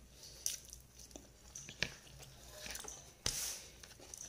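A person chewing and eating, with a few short sharp clicks and smacks; the loudest comes about three seconds in.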